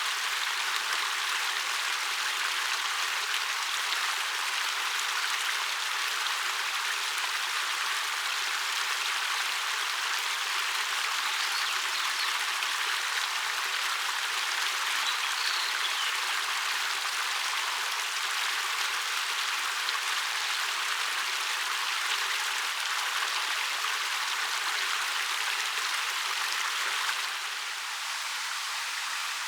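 Ariake Falls, a 13 m waterfall over dark rock, pouring in a steady, even rush of falling water, a little quieter near the end.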